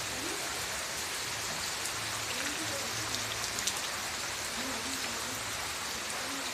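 Steady rain falling, an even hiss with single drops ticking sharply now and then, a few of them a little past halfway.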